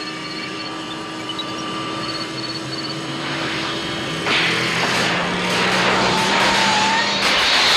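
Movie sound effects of the DeLorean time machine accelerating, its engine pitch stepping up and growing louder. From about four seconds in a loud crackling electrical hiss joins it as the car charges up for time travel.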